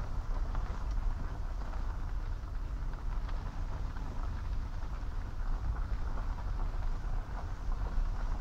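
Car rolling slowly along a gravel driveway: its tyres crackle and crunch on the loose stones over a steady low drone.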